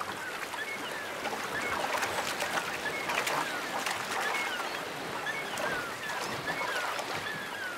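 Shallow stream rushing over rocks, with splashes as a bear cub lunges through the water after salmon, and gulls calling over it again and again with short, high, falling cries.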